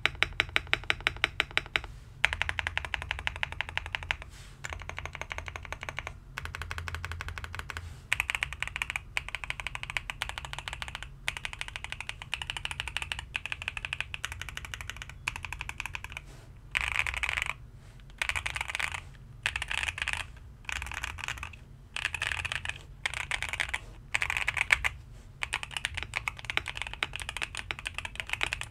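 GMK67 mechanical keyboard being typed on with its stock, unlubed switches, giving a sharp clacky keystroke sound. It opens with a fast, very even run of keystrokes, then goes on in bursts of typing with short pauses between them.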